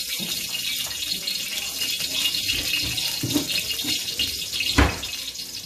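Steady hiss from the gas stovetop, where canola oil is heating in a steel wok beside simmering pots, with a single sharp knock near the end.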